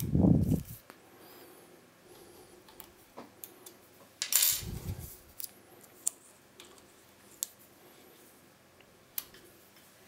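Lock pick and tension wrench working in a Service Etude pin-tumbler euro cylinder: scattered light metallic clicks and scrapes, with a dull bump of handling at the start and another about four and a half seconds in.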